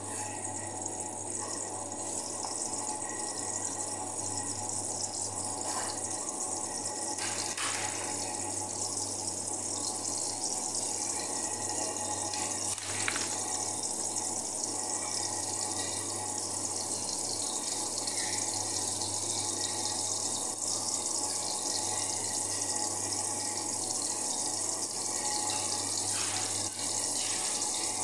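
Chopped onions sizzling in oil in an aluminium pot, being sautéed toward golden brown: a steady hiss that grows slightly louder, with a few faint crackles. A steady low hum runs underneath.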